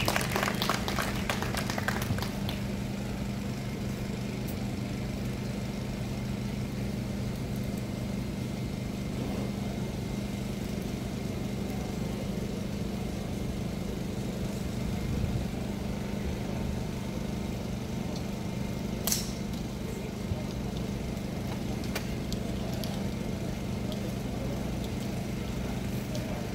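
Spectators clapping briefly at the start, then a steady low hum in the background; about nineteen seconds in, one sharp strike that fits a driver hitting a golf ball off the tee.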